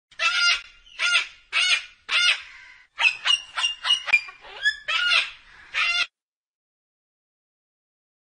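White cockatoo calling: a string of loud, harsh squawks, four separate ones, then a quicker run of short varied notes and two more squawks, stopping about six seconds in.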